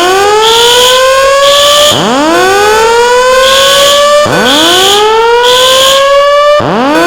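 Fire alarm voice-evacuation system sounding its whoop evacuation tone: a rising sweep that climbs and cuts off abruptly, repeating about every two and a half seconds. A high-pitched beep pulses about once a second over it.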